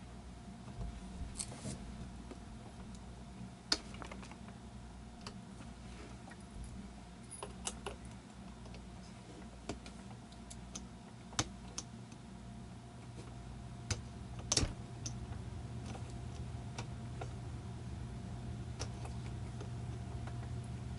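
Scattered small clicks and scratches of loose, melted plastic being picked and scraped off an animatronic figure's part, over a steady low hum.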